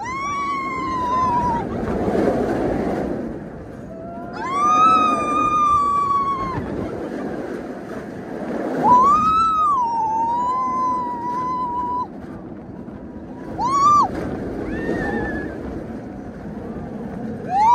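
Riders screaming on a moving steel roller coaster: several long, high screams that rise and fall in pitch, each a second or more, over the steady rush of wind and the rumble of the train on the track.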